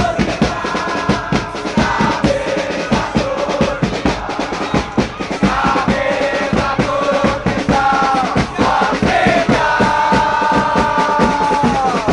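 A stadium crowd of football supporters singing a chant in unison to drum beats. Near the end they hold one long note that then drops away.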